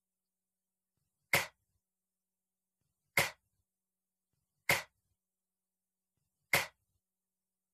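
A woman sounding out single voiceless consonants as letter sounds: four short breathy puffs, each about a second and a half apart, the /p/ sound of p twice and then the /k/-like sound of q twice.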